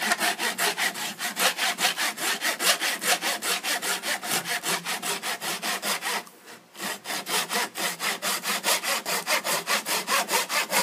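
Fine-toothed Shark pull saw (model 2410, rigid back) cutting through wooden piano hammer shanks in fast, even strokes, about five a second, with one short pause a little past halfway. The saw is trimming the shank ends flush to the hammer moldings.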